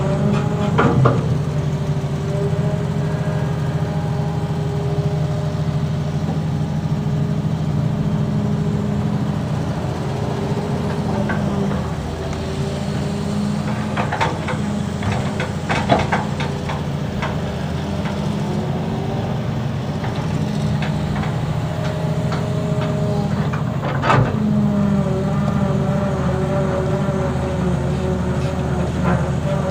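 Excavator's diesel engine running steadily as heard from inside the operator's cab, its note shifting as the hydraulics take load during digging and swinging. A few clunks sound over it: about a second in, twice in the middle and once more later.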